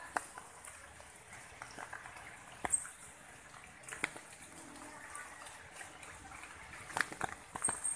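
Faint steady hiss with scattered sharp clicks and taps, the loudest about three seconds in and again near the end.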